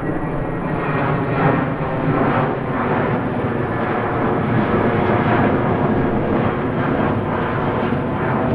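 Jet plane in flight, its engines making a steady hum.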